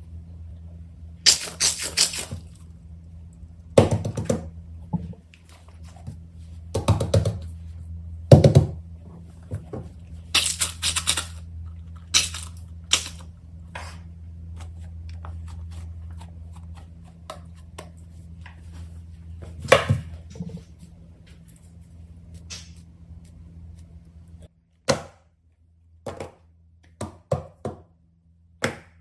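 Irregular thunks, clicks and plastic rattles of fidget toys being handled and set down, over a steady low hum that cuts off suddenly about 24 seconds in.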